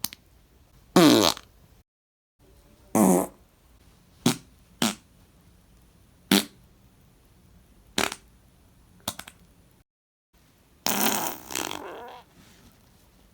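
A series of about eight human farts, mostly short pops a second or two apart. One about a second in falls in pitch, and a longer, uneven one comes near the end.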